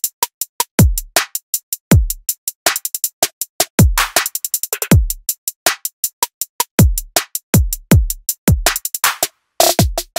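Electronic intro music: a drum-machine beat with deep kick drums falling in pitch about once a second under rapid, sharp clicking hits. The music drops out briefly near the end.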